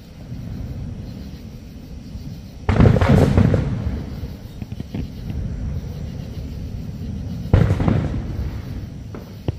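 Aerial fireworks shells bursting: two loud booms about five seconds apart, each rolling away in a long rumbling echo, with a few smaller pops in between.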